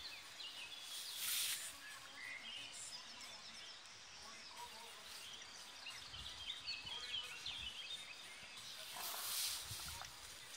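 Outdoor garden ambience with small birds chirping faintly in the background, broken by two brief rushes of hiss, about a second in and again near the end.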